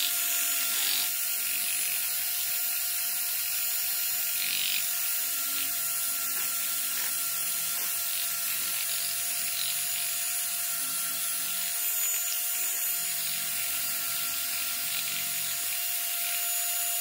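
Milwaukee cordless drill running steadily, spinning a strip of emery cloth inside a Husqvarna 55 chainsaw cylinder's bore to scuff a crosshatch for the piston rings. A constant whine with the abrasive scrubbing against the bore.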